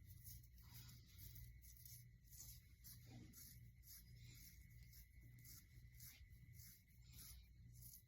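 Faint, repeated soft rubbing, about two or three strokes a second: a hand stroking a dog's fur, over a low steady hum.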